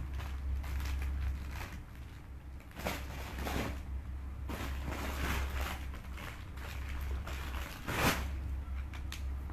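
Clothes and packaging being handled and sorted, with scattered rustles and a sharper crinkle about eight seconds in, over a steady low hum.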